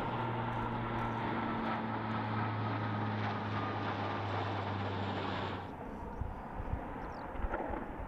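C-130 Hercules four-engine turboprop transport droning overhead, a steady propeller hum. A little over halfway through it cuts suddenly to a quieter, rougher rumble.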